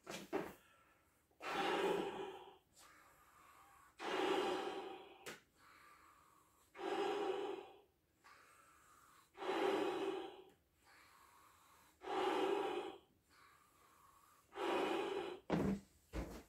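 Lung-powered breaths blown into a clear 24-inch latex balloon: six long exhales at a steady pace, about one every two and a half seconds, with quieter in-breaths between them.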